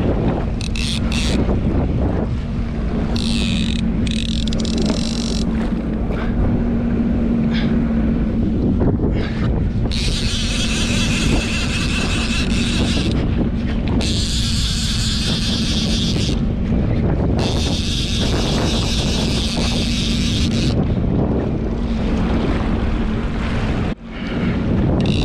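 Jet ski engine running under way, a steady low drone, with wind buffeting the microphone. Four separate high-pitched hissing bursts, each lasting a few seconds, cut in over it, and the sound drops out briefly near the end.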